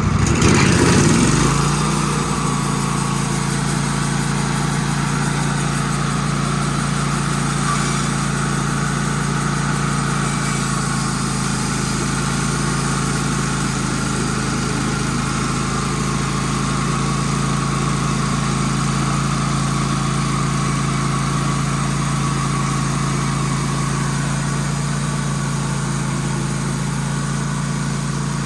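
Wood-Mizer band sawmill's engine coming up to speed and then running steadily, with a higher whine on top; it settles into its steady run about two seconds in.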